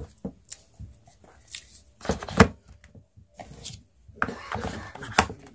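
Cardboard phone box and its white card insert being handled, with a plastic charger being set into the box: irregular taps, clicks and rustles, busiest about two seconds in and again around four to five seconds in.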